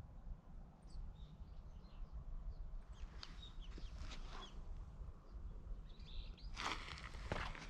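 Small birds chirping here and there over a low, steady outdoor rumble, with a few rustling crunches near the end.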